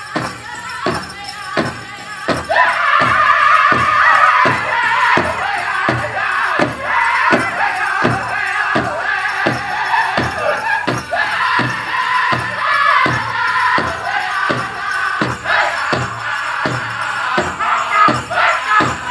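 Powwow drum group playing a chicken dance song: a big drum beaten steadily at about two beats a second, with the singers coming in about two and a half seconds in.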